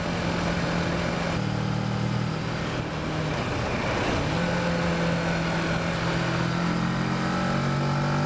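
Kawasaki Versys motorcycle engine running under way. Its pitch steps up about a second and a half in, drops back a couple of seconds later, then climbs gradually near the end.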